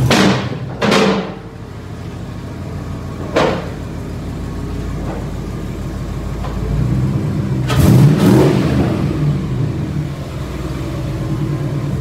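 1968 Chevrolet El Camino's big-block V8 running at a lumpy idle as it rolls into the bay, with three short sharp throttle blips in the first few seconds and a longer rev about eight seconds in.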